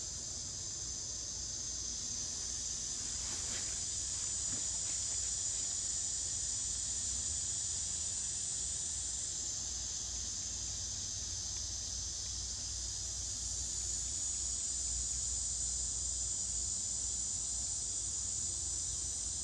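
Insect chorus: a steady, shrill, high-pitched buzz that thins a little about halfway through and swells again later.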